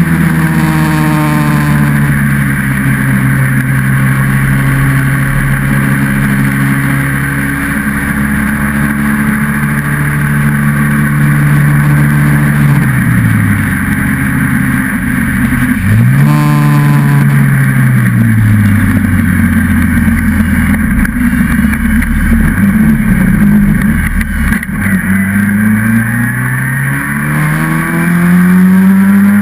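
Austin Seven single-seater's small four-cylinder engine running hard, heard from the car itself. The note holds steady, falls away twice around the middle, stays low for several seconds, then climbs again near the end as the car accelerates.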